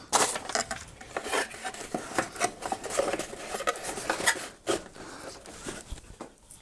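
Hands rummaging in a cardboard product box: cardboard and paper rubbing and scraping, with irregular light knocks and clicks.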